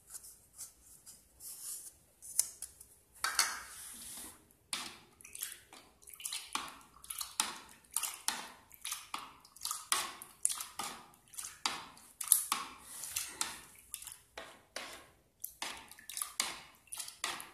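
Plastic ladle stirring a runny liquid handwash mix in a bowl, with repeated sloshing and clattering strokes about twice a second. SLES is being stirred into the mix, which is still thin like water at this stage before it thickens into a gel.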